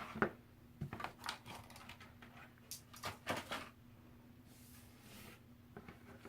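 Small plastic toy pieces and packaging being handled: a run of light clicks and taps over the first few seconds, then it goes quiet.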